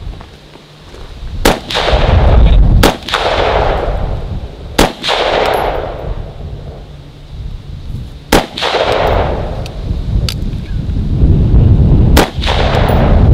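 Rifle shots fired one at a time, five in all, irregularly spaced a second and a half to four seconds apart, each trailed by a rolling echo. A low rumbling noise runs between the shots.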